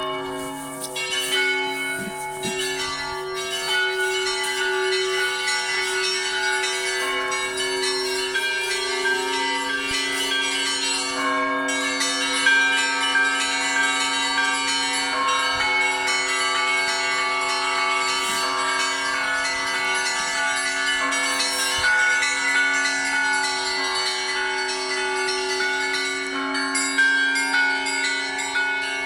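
Russian Orthodox church bells ringing together in a continuous peal: many bells of different pitches are struck over one another, with the deep bells sounding steadily underneath.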